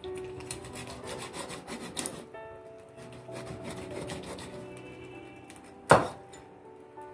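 Meat cleaver working through rabbit meat and bone on a wooden cutting board: a run of rough scraping, sawing strokes, then one sharp chop into the board about six seconds in. Background music with steady tones plays underneath.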